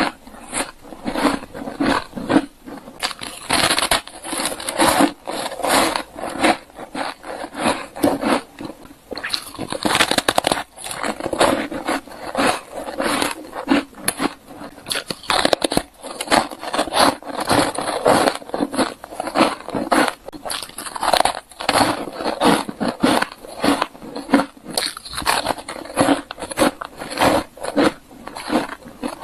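Ice being bitten and crunched close to the microphone: a dense, irregular run of sharp crunches, several a second, without pause.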